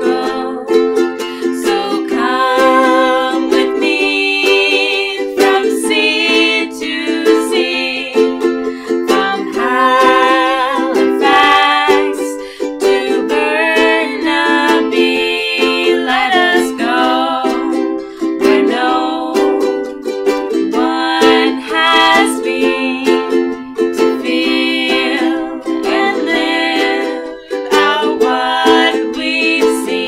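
Two ukuleles strummed together while two women sing.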